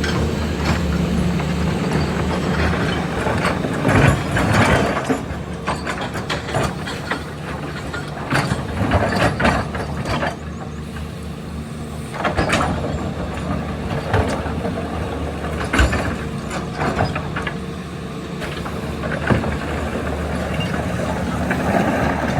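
Heavy hydraulic excavator working: a steady diesel engine hum, with irregular metallic clanks and scraping from the bucket and arm, several times.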